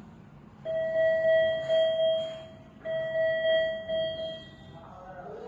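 Electronic medical monitor alarm sounding two long, steady tones of the same pitch, each about a second and a half, over a low steady hum.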